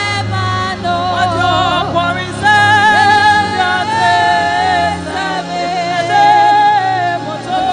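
A woman singing a gospel worship song into a microphone, with long held, wavering notes, over a steady instrumental backing.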